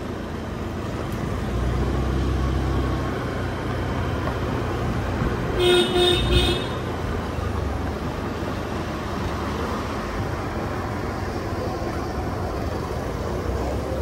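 Road traffic noise with a vehicle horn tooting two short blasts about six seconds in; a low engine rumble swells near the start.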